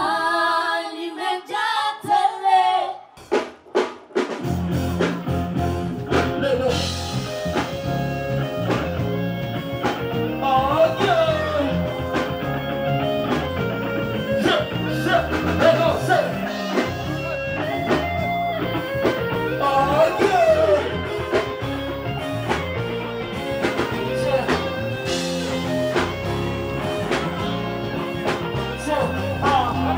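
A live band playing on stage during a sound check. After a few short broken phrases, bass and drums come in about four seconds in, and guitar lines run over a steady beat.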